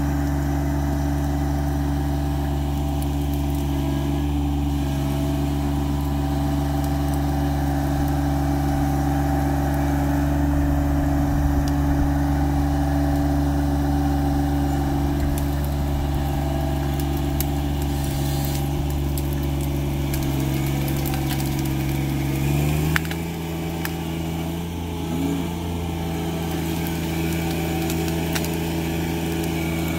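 John Deere 1025R compact tractor's three-cylinder diesel engine running steadily at constant speed. About 23 seconds in, its pitch steps up slightly and it gets a little quieter.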